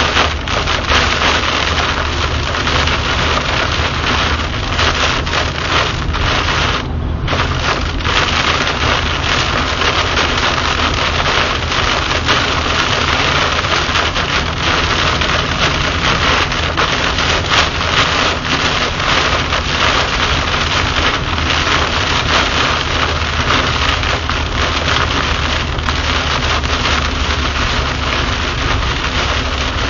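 Heavy rain pelting a moving car's windshield and roof, heard from inside the car as a dense crackling hiss over a steady low rumble of tyres and engine on the wet highway. The hiss drops out for a moment about seven seconds in.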